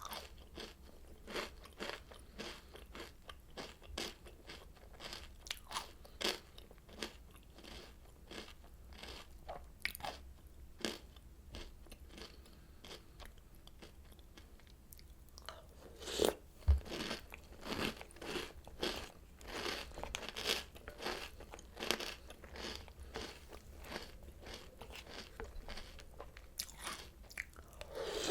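Close-miked crunching and chewing of Oreo O's cereal, crisp cracks coming in quick irregular runs. About halfway there is a brief lull, then a single dull knock and denser crunching.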